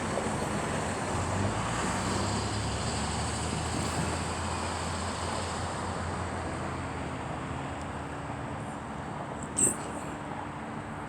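Road traffic noise: a steady rush with a low vehicle engine hum that slowly fades, and one sharp click near the end.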